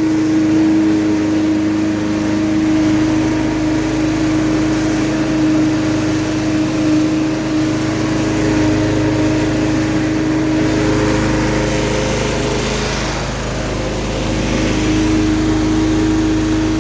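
Billy Goat LB50Q leaf and litter vacuum's small gasoline engine running steadily at working speed, with a constant drone; a rush of noise swells about ten seconds in.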